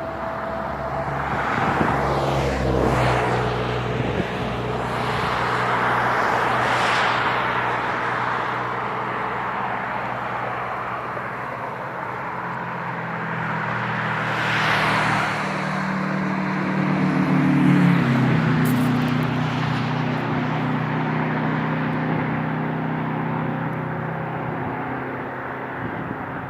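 Highway traffic passing close by, with vehicles rushing past in swells about 2, 7 and 15 seconds in. Under it runs the steady hum of an engine, which changes pitch about 18 seconds in.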